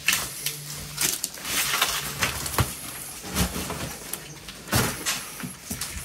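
Irregular rustling, scuffing and short knocks of people moving about and handling things in a small room.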